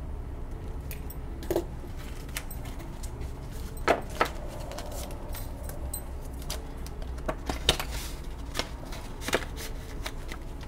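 Banknotes, a pen and a paper cash envelope being handled on a table: light rustles with scattered taps and clicks. The sharpest clicks come about a second and a half and four seconds in, and more follow near the end.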